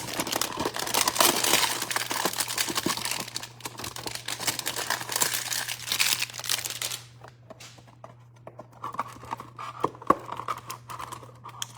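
Packaging of a trading-card hanger box being torn open, with dense crinkling and tearing for about seven seconds, then quieter scattered rustles and clicks as the cards are handled.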